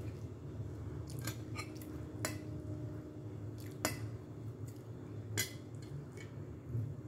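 A fork scraping and clinking against a plate while noodles are gathered: a handful of separate sharp clinks at uneven moments, the sharpest about four seconds in, over a steady low hum.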